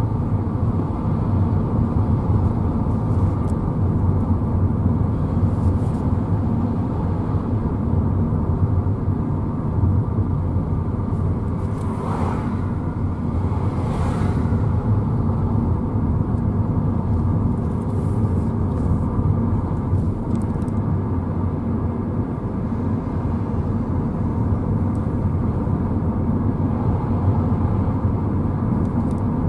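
Car driving through town, heard from inside the cabin: a steady low rumble of engine and tyres on the road. Two short, louder hissing noises come about twelve and fourteen seconds in.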